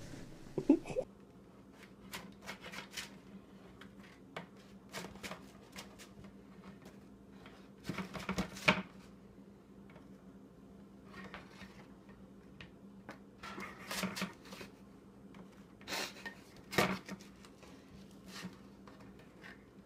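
A metal spatula clinking and scraping on a metal baking sheet as cookies are lifted onto a wire cooling rack, in scattered clicks and scrapes over a steady low hum. A brief loud sound comes right at the start, before the clinking.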